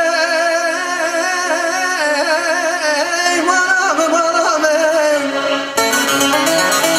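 Male vocalist singing a long, ornamented line with wavering vibrato, over bağlama and keyboard accompaniment. Near the end the voice stops and the band carries on with a steady beat.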